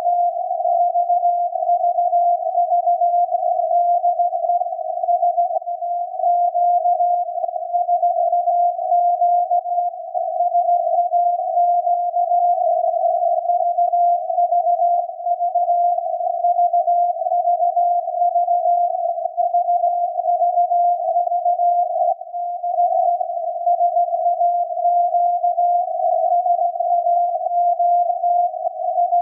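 Radio receiver audio of the Grimeton SAQ Alexanderson alternator's 17.2 kHz VLF transmission, tuned down to a tone near 700 Hz. The tone wavers slightly in pitch inside a narrow band of receiver hiss.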